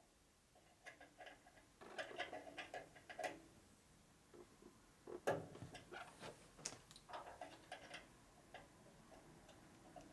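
Faint runs of small metallic clicks and ticks, with one louder knock about five seconds in, as a hand tool turns and taps an adjuster under the cast-iron table of a 1960s Boice-Crane 14-inch bandsaw.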